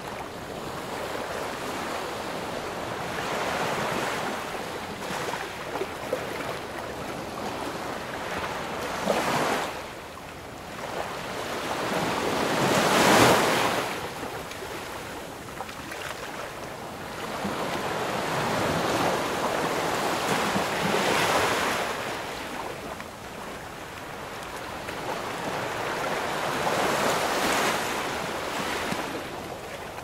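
Ocean waves breaking and washing in, a steady rush that swells and falls back every several seconds, loudest about halfway through.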